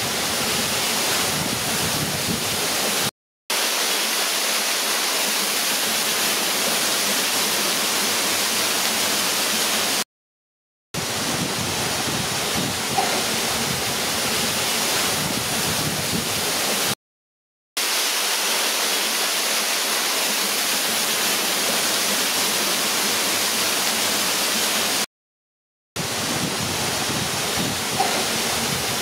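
Hot oil sizzling steadily in a large kadai as batches of pakoda deep-fry, a dense even hiss. It drops to dead silence for a moment four times.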